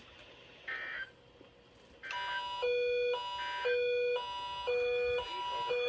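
Electronic two-tone alarm that starts about two seconds in: a low tone and a higher tone alternate about every half second, repeating evenly. A brief short beep comes just before it.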